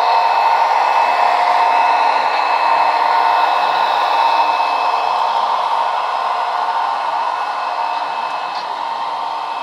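Model freight train rolling past close by: a steady whirring hum from the locomotive's small electric motor and gearing and the wheels on the rails, with a few steady whining tones in it. It eases off slowly over the second half.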